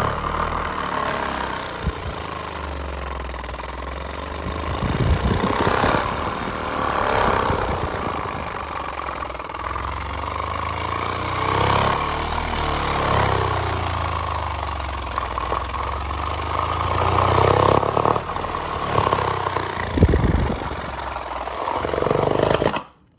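Pyle PLPW8D 8-inch subwoofer played very loud on a low bass tone that shifts in pitch, pushed to its power limit. It cuts off suddenly near the end as the subwoofer dies.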